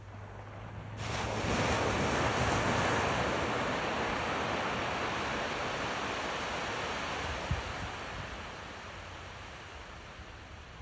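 Ocean surf on a sandy beach: a wave breaks suddenly about a second in, and its wash slowly fades away over the following seconds. Wind rumbles on the microphone underneath.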